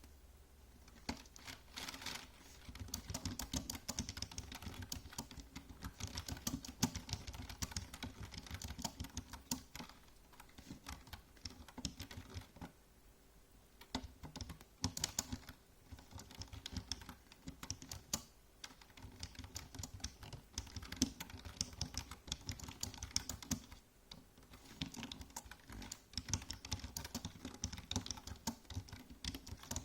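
Typing on a computer keyboard: quick, uneven runs of key clicks with brief pauses, one of them about thirteen seconds in.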